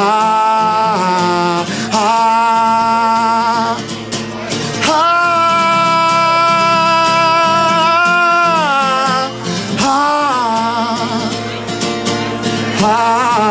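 A male voice singing long held notes with vibrato over a strummed acoustic guitar. The longest note runs about three and a half seconds and falls in pitch at its end.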